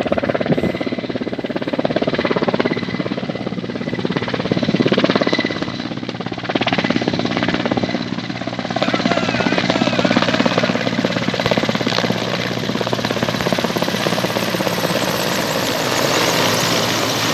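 Firefighting helicopter with an underslung water bucket flying low, its rotor and engine giving a steady drone. A rushing noise grows fuller through the second half as it comes close to drop water.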